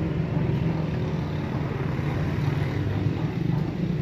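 Steady low hum of a running motor, with no change in pitch.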